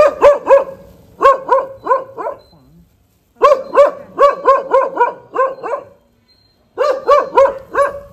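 A dog barking in four quick runs of about three to eight barks each, roughly four barks a second, with short pauses between runs.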